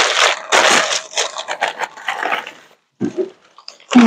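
Crumpled packing paper crinkling and rustling as a wrapped item is unwrapped by hand, a quick run of crackles that stops about two and a half seconds in.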